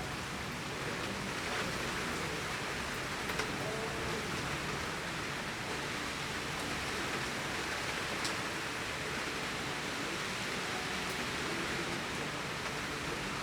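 Torrential rain falling steadily, a dense even hiss with a few sharper drop hits scattered through.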